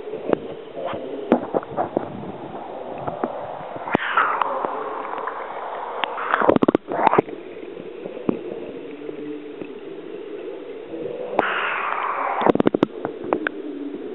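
Swimming-pool water heard from underwater as a swimmer does front crawl close by: muffled gurgling and bubbling with scattered sharp clicks and two rushing swishes, one about four seconds in and one past eleven seconds.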